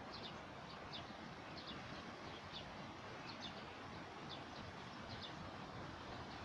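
Small birds chirping, short high notes repeating about once or twice a second, over a steady outdoor hiss.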